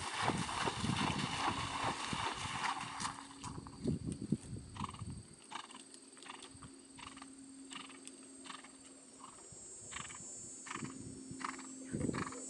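Horse cantering through shallow water, its hooves splashing heavily for the first three seconds. After that come faint, evenly spaced hoofbeats as it canters on across grass, with a short, louder low sound near the end.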